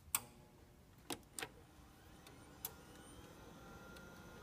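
Gateway E-3200 desktop computer powering on after sitting unused: a few sharp clicks as the power button is pressed and the drives start, then a faint hum of fans and the hard drive spinning up, slowly growing with a thin rising whine.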